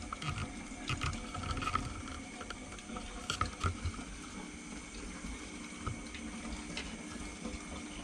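Water in a planted aquarium trickling and sloshing, with irregular small splashes and clicks as plants are handled in the tank, over a steady low hum.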